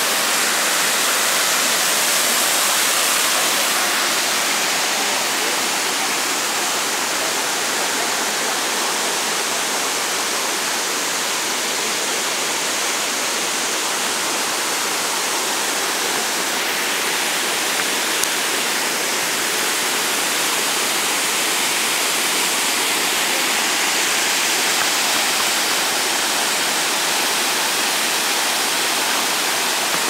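Small woodland waterfall: water falling in several strands over rock ledges into a shallow pool and running on over stones. It makes a steady, unbroken rush.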